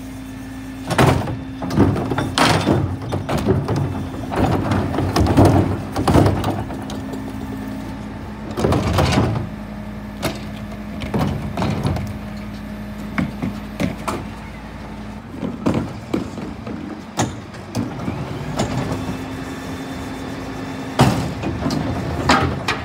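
Scania P320 refuse truck's engine running at the kerb while its rear bin lifts tip wheelie bins into the Dennis split body: a steady mechanical hum, with repeated plastic clatters and metal knocks as bins are lifted, shaken and dropped back. The steady tone in the hum cuts out about two-thirds through and comes back near the end.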